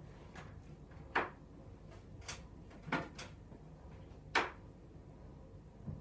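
Kitchen handling sounds: about six sharp knocks and clicks, the loudest a little over a second in and again past four seconds, like cupboard doors or items being set down, over a faint low hum.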